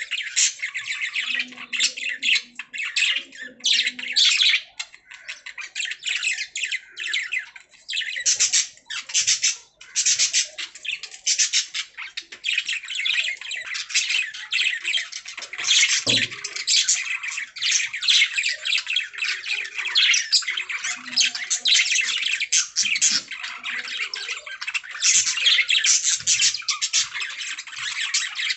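Budgerigars chirping and warbling almost without a break, a dense chatter of short squawky calls and trills.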